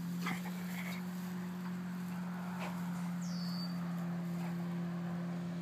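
A steady low hum, with faint rustling and clicks as the dogs push through long grass and a single short high chirp, falling in pitch, about three seconds in.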